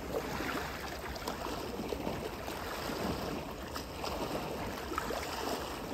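Seawater at high tide splashing and lapping in a steady wash, broken by many small irregular splashes.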